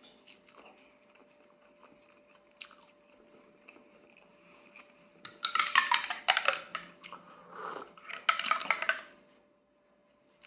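Quiet chewing and biting of food, then from about five seconds in a metal spoon clinking and scraping rapidly against a ceramic mug for about four seconds. A faint steady hum runs underneath.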